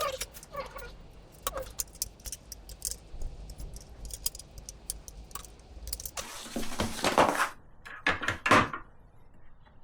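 Table saw parts and tools being handled during assembly: a run of light clicks and clinks, then two louder scraping rattles, one about six seconds in and a shorter one about eight seconds in.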